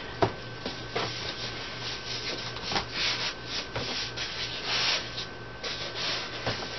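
Cardboard carton and packing inserts rubbing and scraping as the boxed machine is slid out by hand, with a few light knocks and louder scrapes about three and five seconds in.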